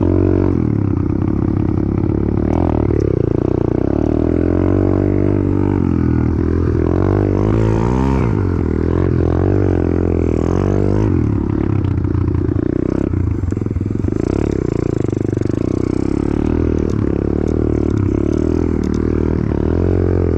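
Apollo RFZ 125 pit bike's single-cylinder engine running hard as it is ridden through snow. The revs rise and fall repeatedly with the throttle, with the sharpest swings around the middle.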